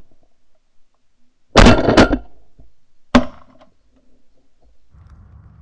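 Three shotgun blasts at Canada geese: two close together about a second and a half in, then a third about a second later, each a sharp report with a short tail.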